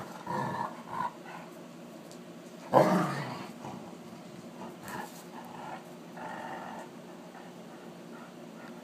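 Play growls from a wolf hybrid and an Alaskan Malamute playing together, in short bursts, the loudest about three seconds in.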